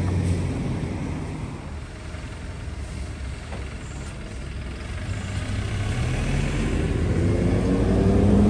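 Road traffic: a vehicle's low engine hum fades over the first couple of seconds, then a city bus's engine grows steadily louder toward the end.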